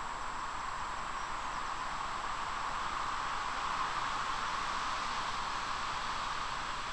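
Steady rushing hiss of river water running, swelling slightly a few seconds in, with a faint steady high-pitched whine above it.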